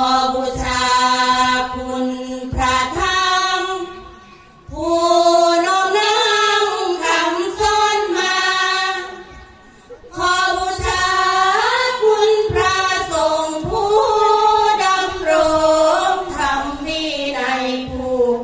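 A group of women singing sorapanya, Isan Buddhist devotional verse, in unison. The long, drawn-out melodic phrases glide between notes, with short breaks for breath about four and ten seconds in.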